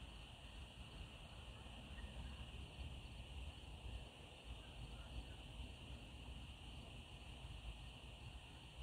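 Faint evening field ambience: a steady high-pitched insect chorus over a low, uneven rumble.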